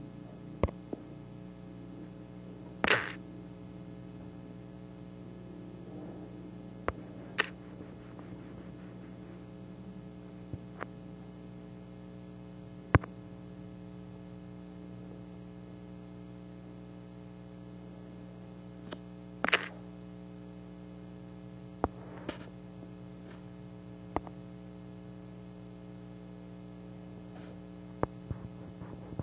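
Steady electrical hum with a buzzy edge, broken by scattered sharp clicks and two short scuffing noises, one about three seconds in and one near twenty seconds in.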